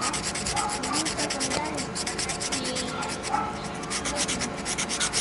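Sandpaper rubbed quickly back and forth over the rubber of a bicycle inner tube, roughening the surface so that the patch glue will hold: a steady run of quick, even strokes that stops near the end.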